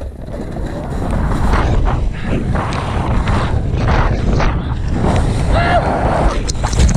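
Rush and buffeting of wind on the microphone while riding fast downhill, with the snowboard hissing and scraping through soft, wet snow.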